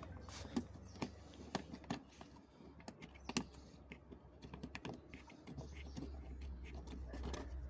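Small irregular clicks and taps of screws being started by hand into the plastic cabin-filter cover, with a screwdriver knocking against the plastic.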